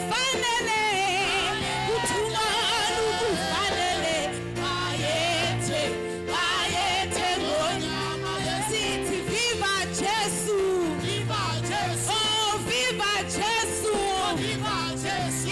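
Praise-and-worship music: singing with a wavering, ornamented melody over held bass notes and chords that change every second or two.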